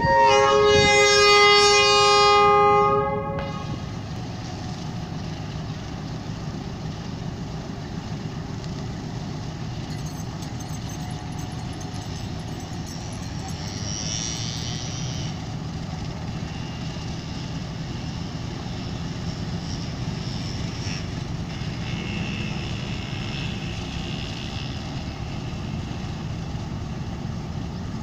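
Diesel locomotive's multi-note air horn sounding one long blast of about three seconds, then the locomotive's diesel engine running with a steady low rumble as the passenger train departs.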